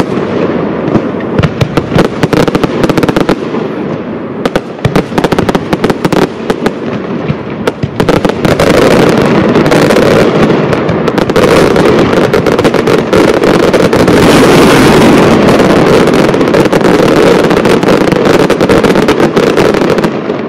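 Aerial fireworks display going off in a rapid barrage: many sharp bangs close together for the first several seconds, then from about eight seconds in the reports merge into one dense, continuous crackle. The barrage cuts off suddenly near the end.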